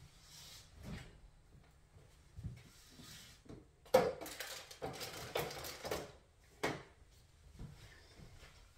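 Kitchen clatter of things being handled: a sharp knock about four seconds in, then about two seconds of clinking and rattling, and another knock a little before seven seconds, with faint clicks in between.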